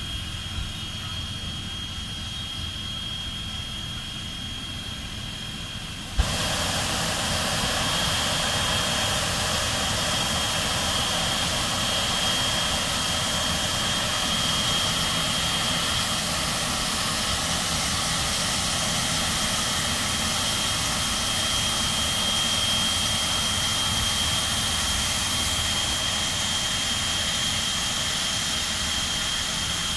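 Strasburg Rail Road No. 89, a 2-6-0 steam locomotive, hissing steam: a loud, steady hiss starts suddenly about six seconds in and keeps on over a low rumble, with a thin high steady tone throughout.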